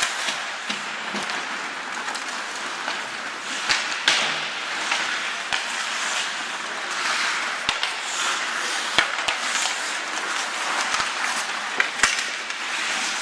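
Ice hockey play on a rink: skates scraping and hissing across the ice, with sharp clacks of sticks and puck at irregular moments.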